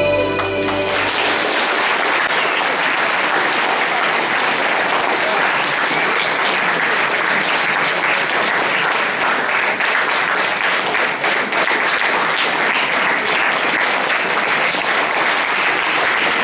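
Waltz music ends about a second in, then an audience applauds steadily.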